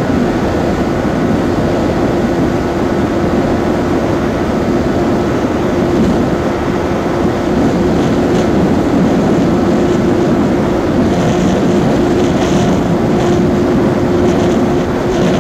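Yamaha R15 V4's single-cylinder engine held at high revs near its top speed, a steady engine note under loud wind rush on the microphone. The note gets slightly louder about halfway through as the speed creeps up.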